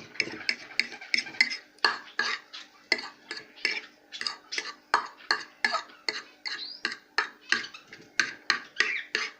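A fork scraping and stirring in a bowl of mashed boiled egg mixed with powdered seed mix, in short rhythmic strokes about three a second.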